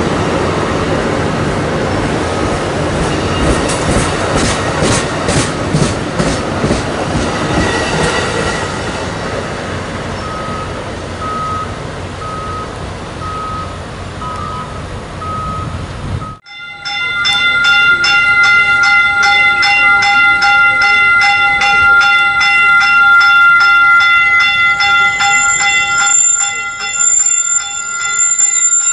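Amtrak California bilevel passenger train rolling past and away, its wheels clicking over rail joints as the rumble fades, with a faint beep repeating in the background. About sixteen seconds in the sound switches abruptly to a Caltrain Stadler KISS electric multiple unit passing with a steady whine of several tones and a fast, even clatter.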